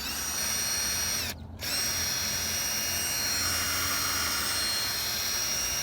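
Small electric drill running with a steady whine as it drills out a rivet on a diecast model car. It stops briefly about a second and a half in, then runs on.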